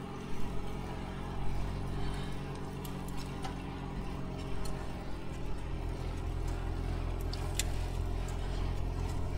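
A motor vehicle's engine running steadily at low speed, a low, even hum with road and wind noise. A few faint light clicks.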